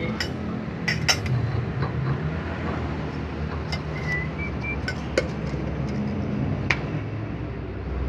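Light metallic clinks of steel parts being handled and fitted at a truck's rear wheel hub during a wheel bearing installation, a few sharp clinks scattered over a steady low rumble.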